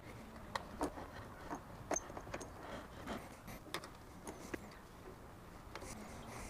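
Faint, irregular light clicks and taps of small metal hardware being handled: the clamps on a braided ground strap, an antenna cable and an Allen key.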